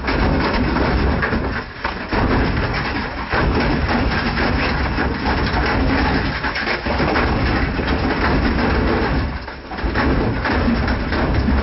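White Knight tumble dryer running with a brick and two hammers in the drum: a steady motor and drum hum with hard objects knocking and clattering against the metal as it turns.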